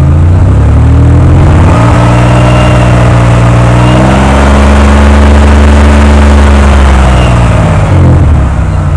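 1998 Oldsmobile 88's 3.8-litre V6 revved up from idle in two steps, held at higher revs, then let back down to idle near the end. The engine has a cylinder 3 misfire, which the owner hears as skipping.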